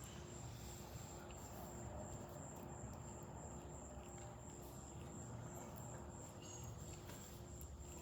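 Faint, steady high-pitched insect trill over a low background hum.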